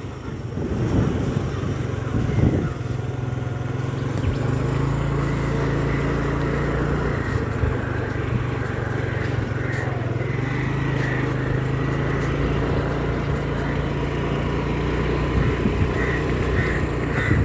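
A road vehicle's engine running steadily at an even pitch, with a constant rushing noise over it.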